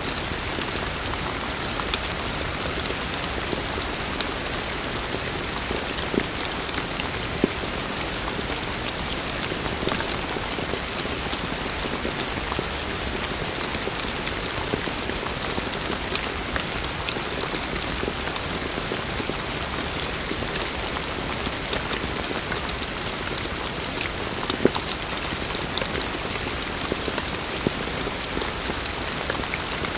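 Heavy rain falling steadily, a dense hiss with scattered louder drops ticking close by.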